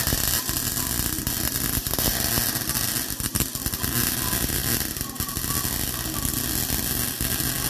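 Electric welding arc crackling and sizzling steadily while plug welding a new sheet-steel rear package tray into a car body. The arc strikes suddenly and runs continuously for several seconds.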